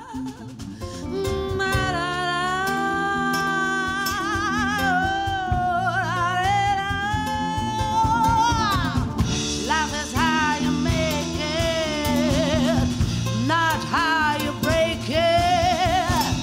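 Live band music: a woman's voice sings long wordless lines with a wide, wavering vibrato over acoustic guitar, bass and drums. About nine seconds in, cymbals come in and the voice turns to quicker sliding runs.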